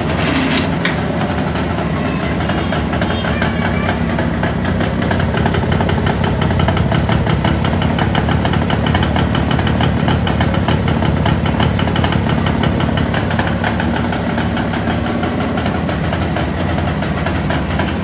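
Jawa 350 twin's two-stroke parallel-twin engine catching abruptly and rising briefly in pitch, then idling steadily with a fast, even pulsing.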